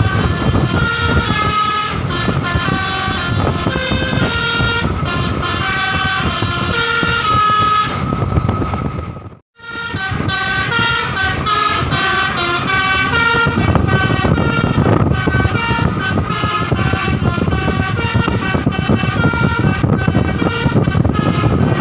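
Basuri telolet multi-tone air horn on a Midas Nusantara bus playing a fast, stepping melody of horn notes over the low rumble of the bus. The horn cuts out briefly about nine and a half seconds in, then starts again.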